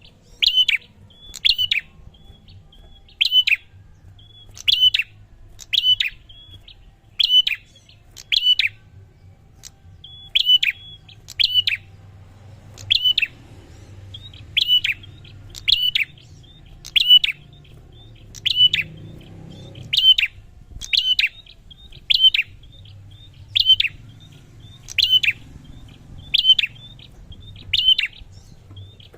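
A prinia (prenjak) repeating a short, sharp chirping call about once a second, each call a quick high note with a clicky edge, over a faint low hum.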